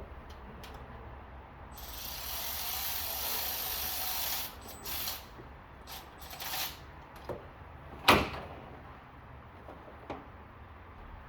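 Hand tools being handled during work under the hood: about two seconds of scraping, then a few short rattles and clicks, and one sharp clank about eight seconds in.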